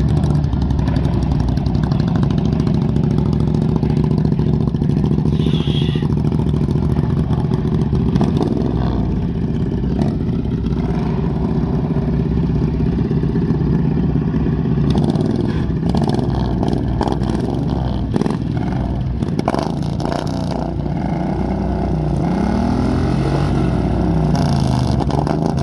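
Tractor engine running steadily, revving up and down a few times near the end.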